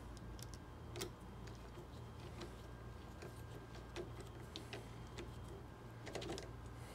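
Faint, irregular small metallic clicks and ticks from a hand nut driver turning an 8 mm hex nut snug on a 3D printer's frame strut, over a low steady hum.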